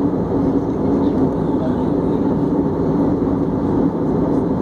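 Airbus A320 cabin noise in flight, heard from inside the cabin: a steady, even rush of engine and airflow noise with a constant low hum.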